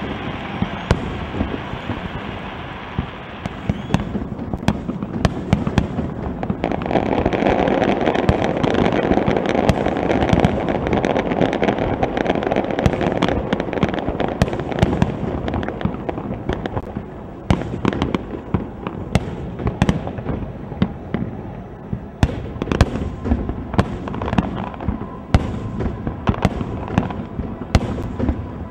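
Aerial fireworks shells bursting in quick succession, many sharp reports over a continuous crackle and rumble. The barrage is densest and loudest from about a quarter of the way in to past the middle.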